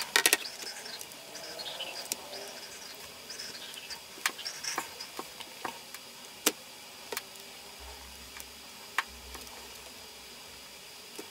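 Sparse light clicks and taps of plastic as a Lenovo ThinkPad T440's display is lifted and lowered on its hinges and the laptop is handled, over a faint steady high-pitched hum.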